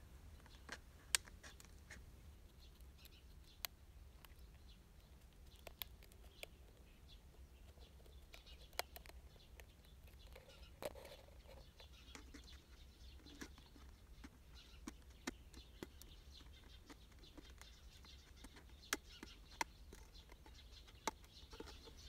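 Small scissors snipping through a thin plastic bottle: faint, irregular sharp clicks every second or two as the blades cut the plastic.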